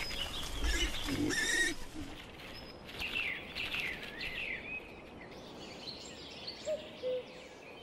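Woodland birds calling: a run of short chirps that rise and fall in pitch, with a brief rustling in the first two seconds and a few low, short notes near the end.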